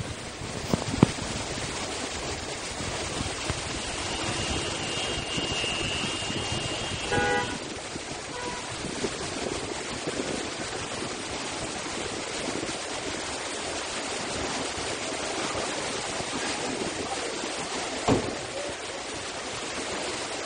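Heavy rain and floodwater making a steady hiss over a flooded road with traffic. A vehicle horn sounds about six to seven seconds in, and there is a soft knock near the end.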